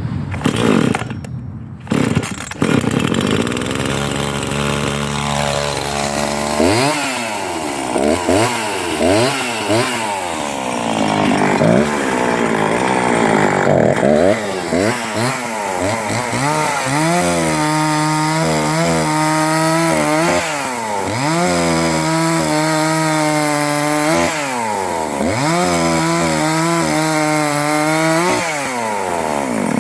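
Husqvarna 340 two-stroke chainsaw cutting linden wood. The engine's pitch climbs and drops again and again as the saw is revved and loaded in the cut, with steady full-throttle stretches in between.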